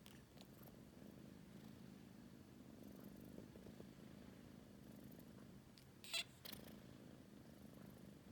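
Kitten purring faintly and steadily, with a quick double burst about six seconds in, a kitten's sneeze.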